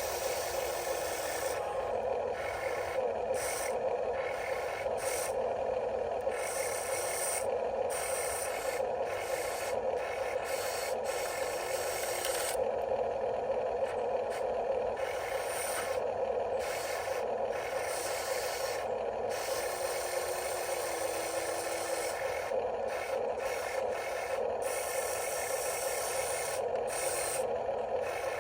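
Small electric motors of a Huina radio-controlled construction model whining steadily, with gritty scraping and rubbing as it works dirt.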